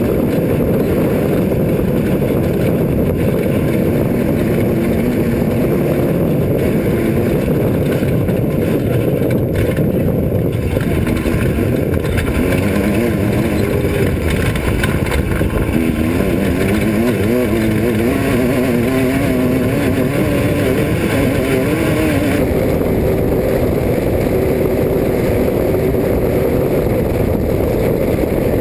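Off-road race car's engine running hard, its revs rising and falling, under a dense steady rumble.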